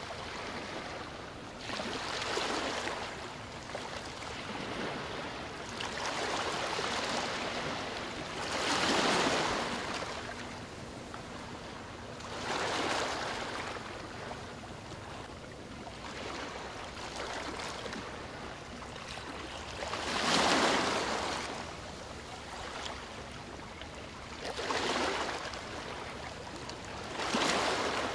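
Water washing against the river shore in surges every three to five seconds, each swell of rushing noise lasting a second or two, over a faint steady low hum.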